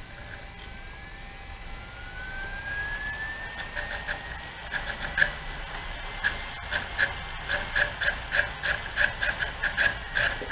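Laptop CD-ROM drive spinning up with a rising whine, then clicking rapidly and irregularly as it seeks and reads the software disc.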